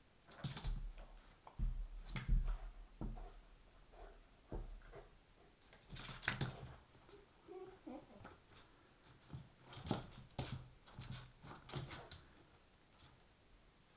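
A dog's claws and paws scrabbling, clicking and thumping on a hard wooden floor as she pounces and spins after a laser dot, in irregular bursts with several flurries of quick clicks.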